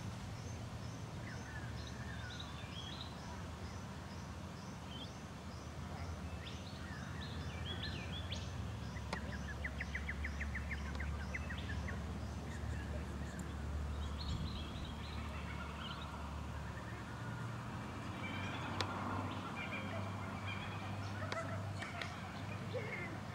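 Wild birds calling: a long run of short high chirps, about two a second, over the first several seconds, then a quick rattling trill about ten seconds in and scattered chirps later, over a low steady rumble.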